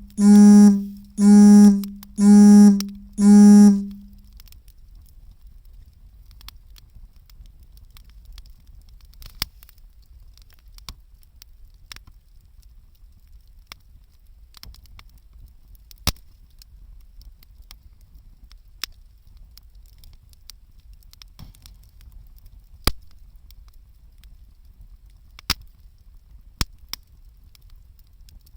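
Five loud, evenly spaced beeps of one low pitch in the first few seconds, then a wood campfire crackling with occasional sharp pops.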